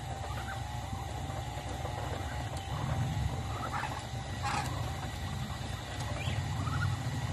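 Muscovy ducks and their ducklings feeding, with a few short, scattered calls and one brief rasping hiss about halfway through, over a steady low hum.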